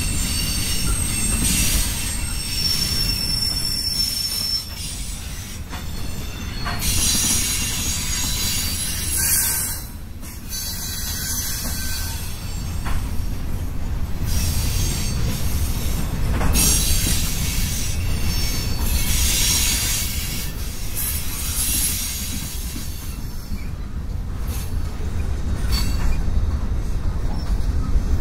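Freight cars of a long CSX manifest train rolling past, a steady rumble of steel wheels on rail with thin, high-pitched wheel squeals coming and going.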